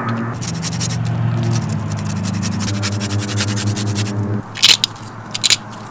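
Repeated short scraping strokes of a hand-held rasp grater worked over the plate, the plainest two in the last second and a half. Soft background music with held chords runs under them and stops about four seconds in.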